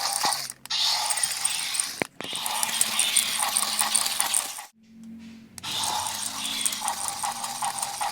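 Remote-control walking velociraptor toy's geared walking mechanism running with a fast clicking rattle. It stops briefly about half a second in and again near two seconds, then for about a second just past the middle before starting again.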